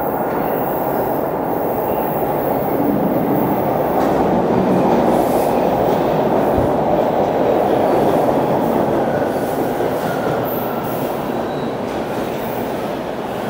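TTC Line 2 subway train (a Bombardier T1) pulling into the station: a loud rumble that builds as it enters, peaks midway and eases off as it slows along the platform, with a faint wheel squeal near the end.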